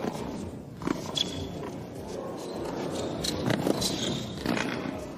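Tennis rally on an indoor hard court: several sharp racket strikes and ball bounces over a hushed crowd murmur.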